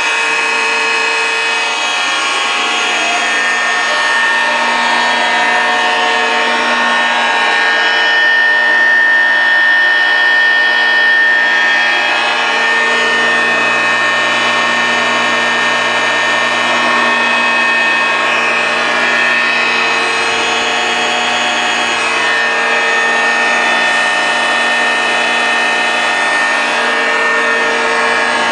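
Kwik-Way SVSD Series II valve grinder running: a steady machine whine made of several held tones, with a lower tone coming and going every few seconds.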